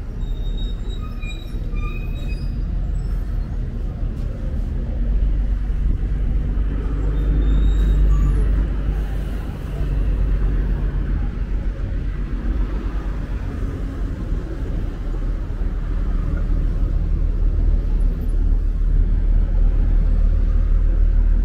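Street traffic: a steady low rumble of passing vehicles, with a few short, high squeaks in the first few seconds and again about a third of the way in.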